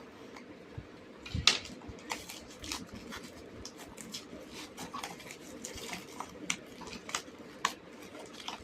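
Utility cutter knife cutting into a cardboard box, with irregular clicks, scrapes and rustles of handling the packaging starting about a second and a half in.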